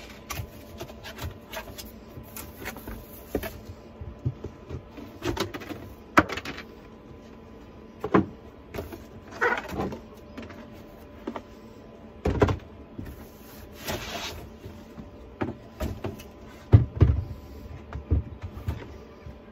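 Cardboard box and black plastic AutoPot tray and pot parts being handled: scattered clicks, knocks, scrapes and rustles of plastic against cardboard, with a few heavier thumps near the end.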